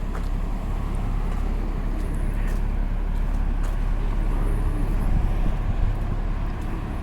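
Downtown street traffic: a steady low engine rumble with a constant wash of road noise.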